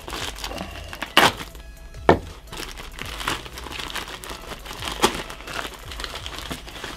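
White plastic padded shipping bag being handled and opened by hand: irregular crinkling, with sharp cracks about one and two seconds in.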